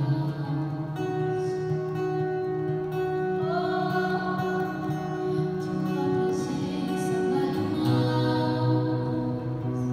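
Slow live worship song: a woman sings long, held notes over acoustic guitar.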